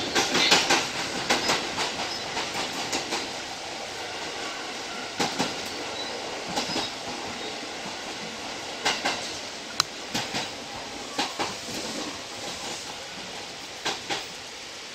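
Electric commuter train heard from its front cab, wheels rattling over the points of a junction in quick clicks, then rolling on with pairs of clicks over rail joints every second or so, the running sound easing off toward the end.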